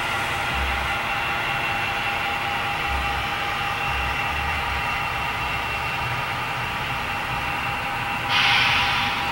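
Steady mechanical hum and hiss with several fixed tones, and a short, louder burst of hiss near the end.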